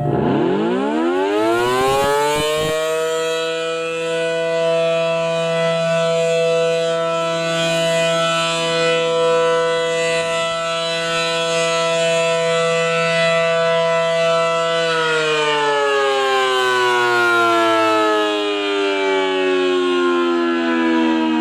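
Civil defense siren sound in a custom Emergency Alert System alarm. It winds up over about two seconds, holds a steady tone, then slowly winds down over the last six seconds before cutting off.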